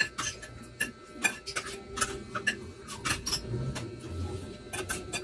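Eating sounds: a spoon and fork clicking and scraping on a ceramic plate, with chewing. Irregular sharp clicks come several times a second.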